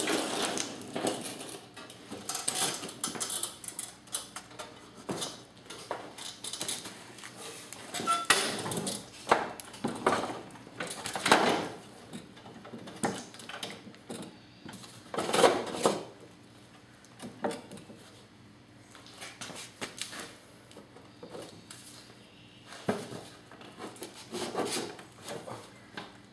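Irregular metallic clanks, knocks and scrapes of a toolbox and a jack stand being set in place to prop up a tipped lawnmower, with the loudest knocks about 8, 11 and 15 seconds in.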